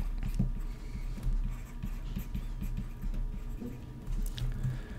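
Stylus writing on a tablet screen: a quick, irregular run of light taps as words are handwritten.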